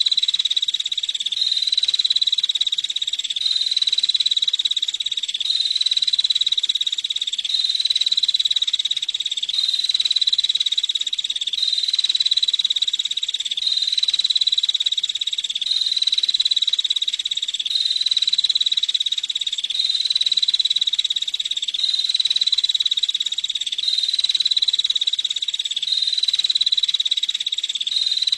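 Female prinia (prenjak) giving its rapid buzzing trill over and over, a near-identical phrase with a small step in pitch repeating about every two seconds at a steady level.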